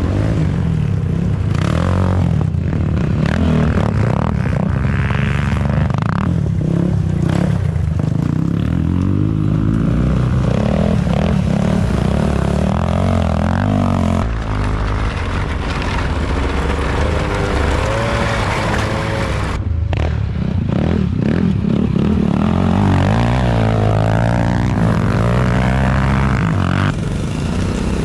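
Small recreational-vehicle engines running and revving in the snow, their pitch rising and falling with the throttle, with a brief sudden break about two-thirds of the way through.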